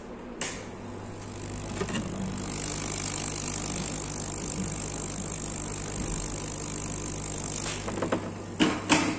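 Hot air rework gun blowing a steady hiss of hot air onto a surface-mount resistor to melt its solder and lift it off the board. The air stops about eight seconds in, and a few light clicks follow.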